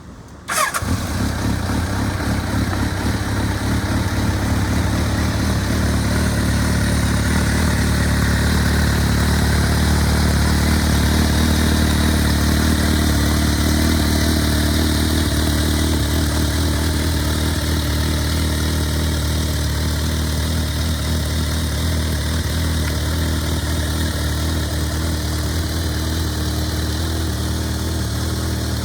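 Kawasaki ZRX1200 DAEG's inline-four motorcycle engine being started: a brief whirr of the starter, then the engine catches about half a second in and settles into a steady idle.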